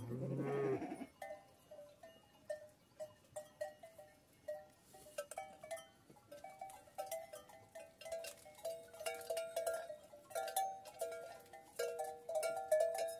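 A sheep bleats once at the very start, then the bells on a flock of Kangal sheep clank and ring irregularly as the animals shift about, the ringing getting busier and louder in the second half.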